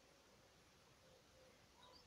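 Near silence of an outdoor spring scene, with faint, distant bird calls and a faint higher call starting near the end.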